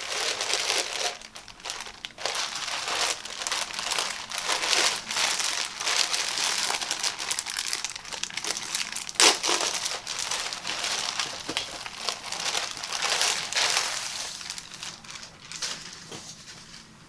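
Thin clear plastic poly bag crinkling and crackling as hands handle and open it to take out a folded polo shirt, with one sharp, loud crackle about nine seconds in. The crinkling dies down near the end.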